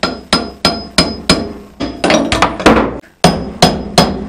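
Steel hammer striking a drift against the outer race of a wheel bearing, driving it into a motorcycle's rear wheel hub. About a dozen sharp metallic blows come at roughly three a second, each with a brief ring, with a short pause about three seconds in.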